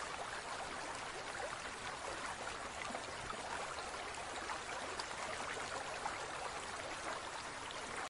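Steady rush of water, an even noisy hiss with faint crackling through it.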